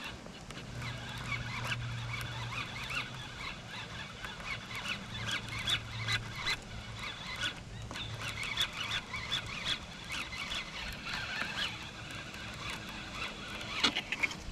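Birds chirping and calling over and over, with a low drone coming and going underneath.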